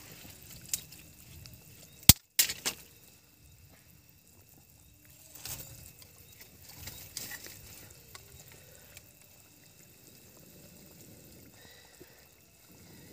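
Curry simmering in a steel pot over a wood fire, faint bubbling, with sticks being shifted in the fire. Two sharp clicks sound about two seconds in.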